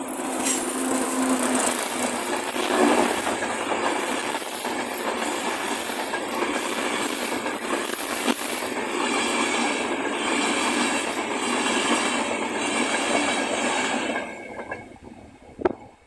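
Class 91 electric locomotive and InterCity 225 Mk4 coaches passing at speed: a loud, steady rush of wheels on rail and air that falls away quickly about fourteen seconds in as the train clears. A single sharp click comes near the end.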